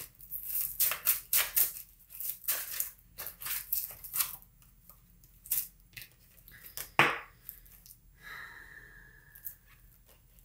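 Tarot cards being shuffled and handled by hand: a run of quick papery flicks and rustles, with one louder knock about seven seconds in.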